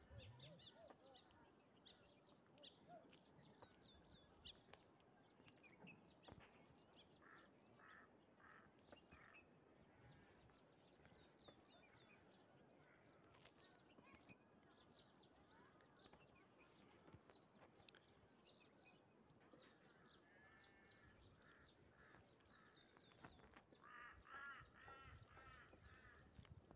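Faint birdsong and bird calls: many short high chirps throughout, with runs of quick repeated calls, the loudest run near the end.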